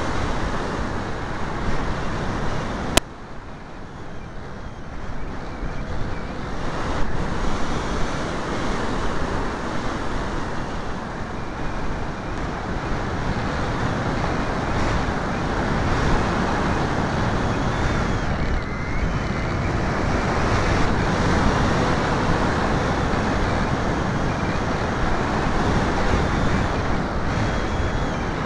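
Steady rush of wind over an onboard camera's microphone in flight, with no engine tone. A single sharp click about three seconds in, after which the noise drops quieter and slowly builds back up.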